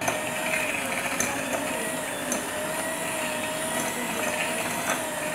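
Electric hand mixer running steadily on its lowest speed, its beaters creaming butter and brown sugar, with a steady motor whine and a few faint ticks.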